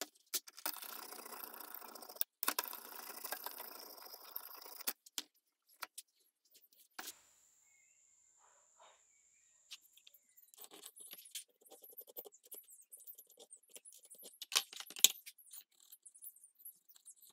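Whetstone in a guided knife-sharpening jig rasping along a wet bearing-steel blade in two long strokes over the first five seconds. After that comes a faint high steady whine for about three seconds, then scattered light clicks and clinks of handling, with one sharp knock about fifteen seconds in.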